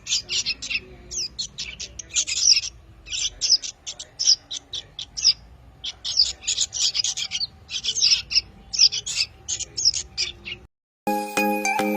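Young prinias and bulbuls calling, played as a bird-lure recording: quick bursts of short, high chirps, repeated over and over. The calls cut off about ten and a half seconds in, and a chiming music tune starts a moment later.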